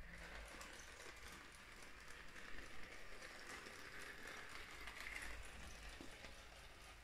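LEGO steam locomotive running on plastic LEGO track: a faint, steady rattle of wheels and gearing with light clicks.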